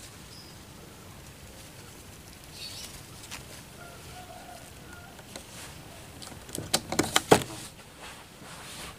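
A caged puter (Barbary dove) flapping its wings as it jumps off its perch: a quick run of about five sharp wingbeats and knocks about seven seconds in.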